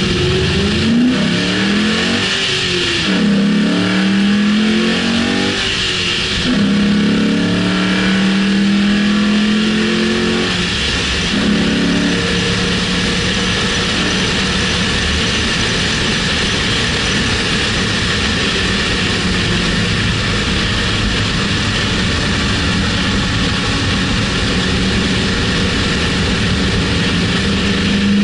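2006 Mustang GT's V8 engine heard through a bumper-mounted camera over steady wind and road rush. In the first dozen seconds it revs up and drops back several times through gear changes, then holds a steady pitch at a constant speed.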